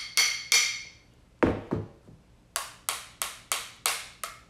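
A broken wooden drumstick tapping the metal housing of a Ubiquiti G4 Pro bullet camera. It starts with two ringing, cowbell-like knocks, then two duller thuds about a second and a half in, then a quick run of about seven taps at roughly three a second.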